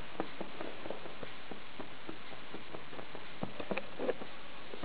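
Irregular light ticks and crackles from a lidded pot heating over a homemade tin-can bioethanol burner, with a steady hiss underneath. A few louder ticks come about three and a half to four seconds in.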